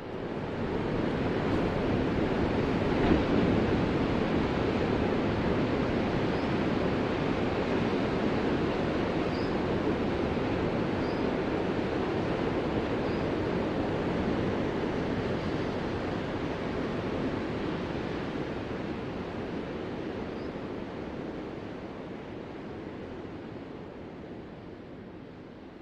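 Ocean surf: a steady, continuous rush of breaking waves that starts abruptly and slowly fades over the last ten seconds or so.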